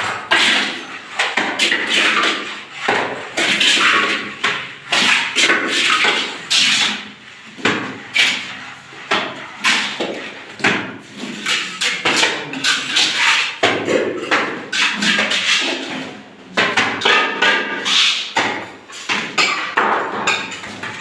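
Masons' trowels scraping and knocking in an irregular stream of sharp clinks and scrapes as cement mortar dabs are laid on a brick wall, marking the level for plastering.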